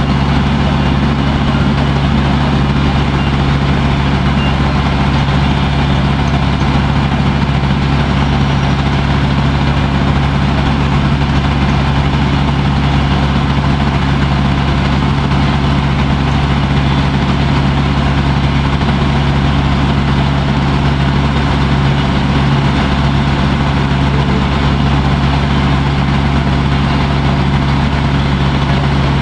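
Water taxi's engine running steadily under way, a constant low drone with no change in pace.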